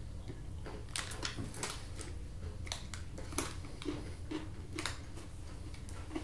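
Chewing of a peanut butter Twix bar: scattered soft clicks and crackles, about eight over a few seconds, over a steady low hum.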